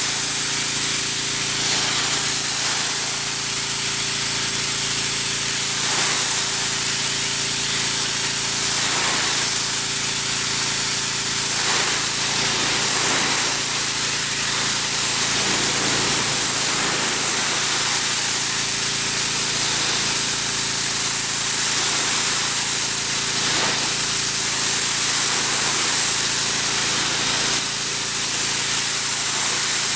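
Pressure washer spraying water onto wooden deck boards: a loud, steady hiss of the jet with the machine humming steadily underneath.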